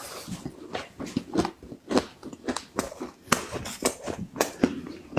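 Hard ice being bitten and crunched between the teeth close to the microphone: a quick series of sharp, crackly crunches, about two a second.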